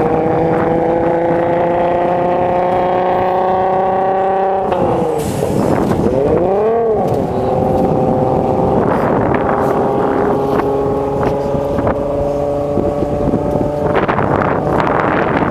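Naturally aspirated 3.8-litre Holden Commodore V6 of a bellytank lakester at full throttle on a land-speed run, heard from afar. Its pitch climbs steadily, drops and wavers briefly at a gear change about five seconds in, then holds a steady high note. Wind buffets the microphone near the end.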